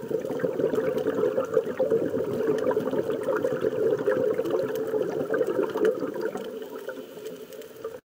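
Bubbling water, a dense crackle of small pops, cutting off suddenly near the end.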